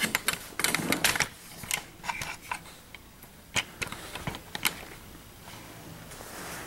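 Light clicks and knocks of handling as the camera and the steel box are set up. They come in a dense patter for about the first second and a half, then as a few scattered taps.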